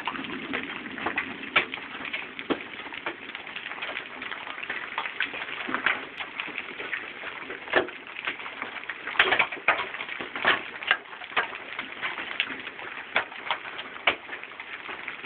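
Hail and rain falling: a steady hiss with irregular sharp cracks of hailstones striking hard surfaces close by, the heaviest hits about nine to eleven seconds in.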